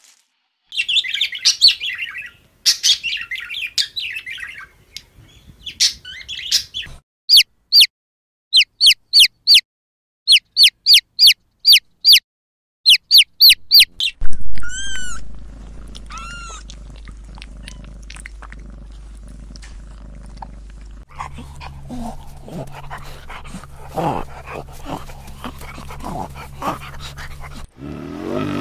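Runs of short, sharp, high chirps for the first half, then about halfway a kitten mews twice over a steady low hum. After that come irregular lower animal sounds.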